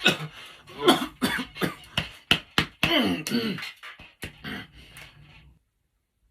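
A woman's dry cough: a long fit of repeated sharp coughs, some with strained voiced sounds between them, stopping about five and a half seconds in.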